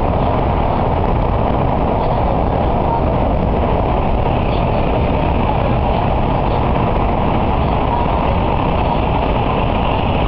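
N700A Shinkansen running at speed through a tunnel, heard inside the passenger cabin: a loud, steady running noise of wheels on rail and rushing air, mostly low in pitch.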